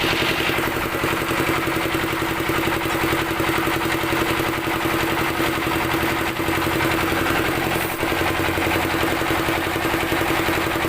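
A small motor running steadily: a constant hum with a fast, even pulse.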